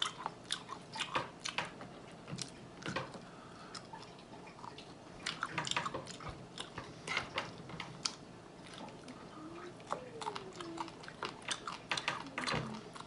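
Close-miked eating of air-fried buffalo chicken wings: irregular sharp clicks and wet mouth sounds of biting and chewing, with meat being pulled off the bone.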